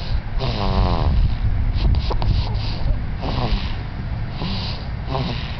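Baby snoring loudly: a string of noisy snoring breaths about a second apart, some with a wavering pitched tone.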